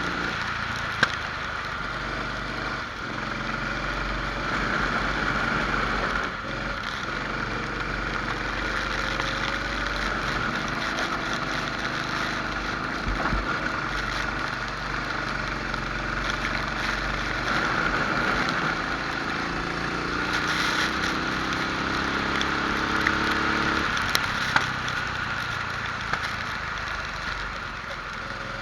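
Rental kart engine at racing speed, its pitch climbing along the straights and dropping off into the corners several times, over a steady hiss. A few sharp clicks are heard.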